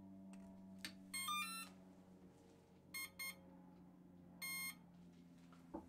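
Brushless motor's ESC start-up tones played through the motor as the battery is connected: a click, then a rising three-note chime, two short beeps and one longer beep, over a faint steady hum. On a typical ESC the two beeps count the cells of the 2S battery and the long beep signals that the ESC is armed.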